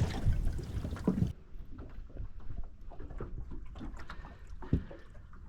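Scattered knocks and clicks of fishing gear being handled in a small boat, with one heavier thump near the end. A low rumble fills the first second or so and cuts off suddenly.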